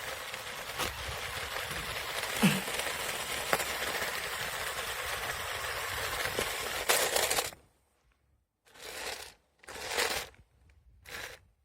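Toy remote-control stunt car running and tumbling over rough ground: a steady scraping rush with scattered clicks and knocks. It cuts out about seven and a half seconds in, followed by three short bursts of the same noise separated by silence.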